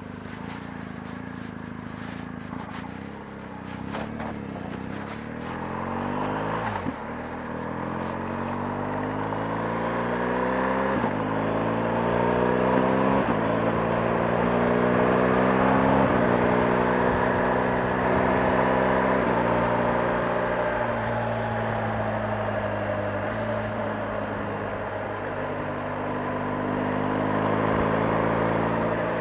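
BMW R 1250 GS's boxer-twin engine pulling away and accelerating up through the gears. Its note rises in each gear and drops back at each of several upshifts, growing louder, then settles to a steadier cruise near the end.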